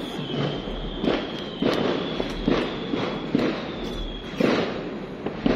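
Fireworks going off: a run of irregular bangs and crackles, the louder ones roughly a second apart, over a continuous rumble of distant bursts. A steady, slightly wavering high whine runs underneath.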